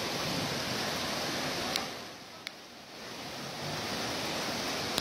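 Muddy floodwater rushing down a flooded street: a steady noisy rush that eases off about two seconds in and then swells back up.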